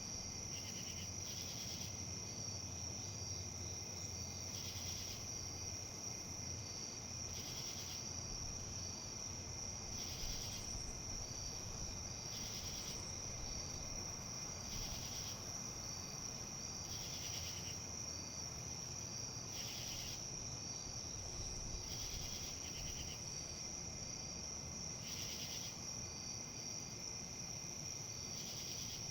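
Insects calling: a steady high trill, with a louder pulsed call repeating about every two and a half seconds. Underneath is a low, even rustle of wind.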